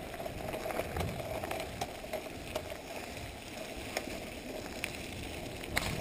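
Corratec mountain bike rolling over a gravel road: a steady crunch and rumble of tyres on loose gravel, with scattered sharp clicks and rattles from the bike over bumps.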